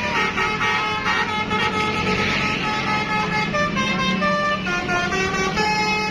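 Bus telolet horn: a set of air horns playing a tune, several notes sounding together and changing in steps, over a low rumble.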